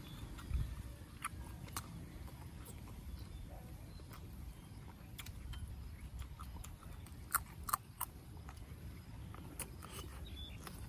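A person chewing food close to the microphone, with scattered wet mouth clicks and a few louder sharp clicks about seven and a half seconds in, over a steady low rumble.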